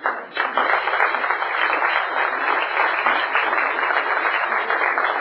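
Audience applauding, the clapping breaking out just after the start and running on steadily.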